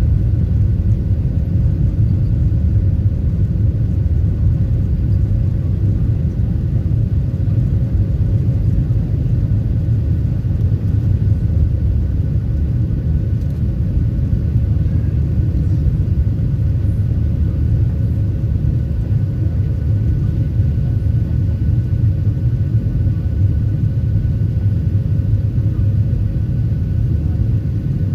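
Steady low rumble of a Boeing 737-700's CFM56 jet engines and airflow heard inside the passenger cabin, with a faint steady whine above it.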